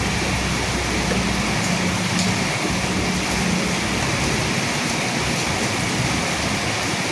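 Steady rain falling, an even hiss with no break. A low rumble, the tail of thunder, dies away about a second and a half in.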